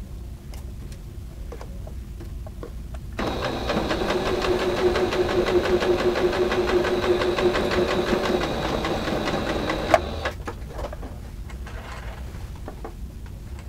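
Singer Confidence electric sewing machine stitching a seam. It starts about three seconds in, runs steadily for about seven seconds and stops with a click. Light clicks of fabric being handled come before and after it.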